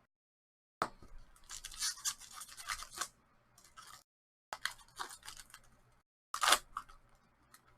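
Crinkling and scraping of a foil hockey card pack and trading cards being handled as the pack is worked open and the cards pulled out. It comes in three short spells of rustle, each beginning with a sharp snap.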